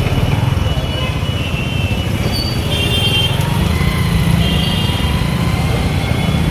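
Busy street traffic: motorcycle, scooter and car engines running in a steady low rumble, with short high horn beeps about three seconds in and again near four and a half seconds.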